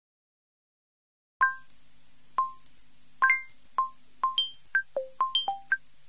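Background music: after about a second and a half of silence, a tune of short, high, bell-like notes starts, played one or two at a time at about four a second, each dying away quickly.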